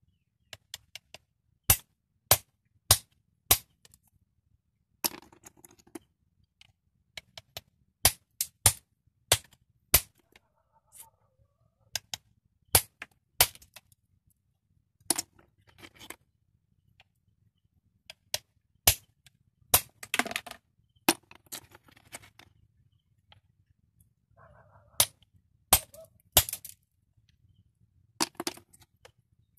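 A bolo knife chopping the pointed tips off horn snail shells against a wooden stump: a string of sharp chops, often three or four in a row about half a second apart, with brief crunching and scraping of shell between them.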